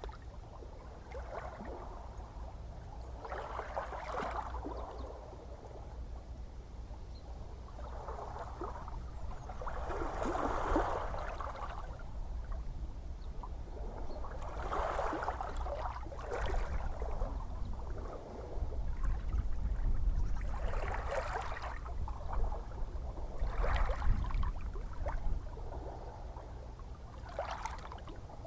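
Small ocean waves lapping and splashing at irregular intervals a few seconds apart, over a steady low rumble of the sea.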